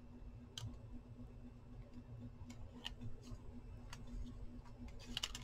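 Faint, scattered ticks and light taps of paper and card being handled on a craft mat, a few of them close together near the end, over a low steady hum.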